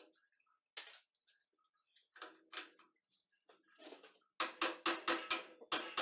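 Scattered clinks and scrapes, then a quick run of sharp knocks, about five or six a second, starting after about four seconds.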